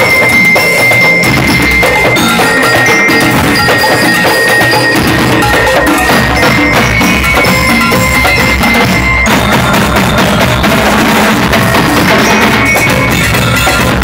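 Marching band playing: bell lyres ring a melody over congas, snare and bass drums in a steady, driving rhythm. The low drums grow heavier after about five seconds.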